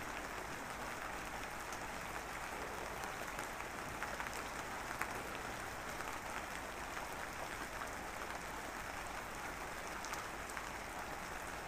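Steady, even rain-like hiss with scattered faint crackles, the masking background of a subliminal-affirmation track.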